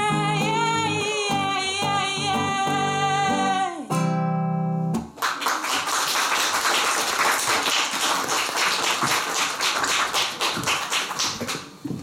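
A woman sings a long final note over strummed acoustic guitar, and the song ends with a last ringing tone about four seconds in. An audience then applauds steadily until just before the end.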